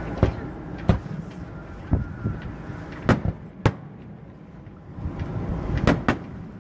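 Aerial fireworks shells bursting: about seven sharp, separate bangs, some in close pairs, over a low rumble.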